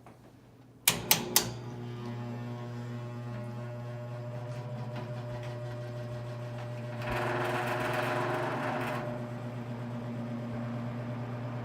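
A few sharp switch clicks, then the 1960s Fasco 2077 box fan's electric motor starts and runs with its blades in reverse, a steady electrical hum with overtones and a louder rush of air for about two seconds near the middle. Reverse running sounds completely different from normal intake running, and the loud hum comes from a motor that the owner says needs work done to it.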